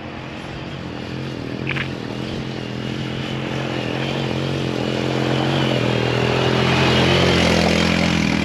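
Honda TRX90 youth quad's small single-cylinder four-stroke engine pulling steadily up a steep dirt hill under load. The engine note holds an even pitch and grows louder as the quad climbs toward the listener.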